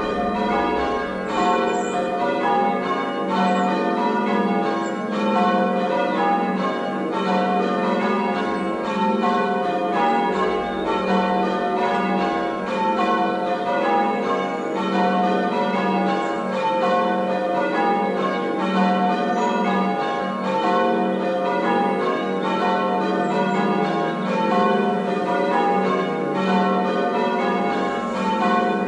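A ring of six church bells, the tenor about 10 cwt in F, ringing changes: an unbroken, even run of strikes, each bell sounding in turn and its tone hanging on under the next.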